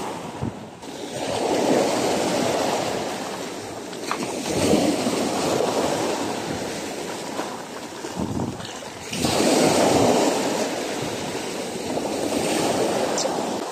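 Sea surf breaking and washing up the shore in about four rising and falling surges.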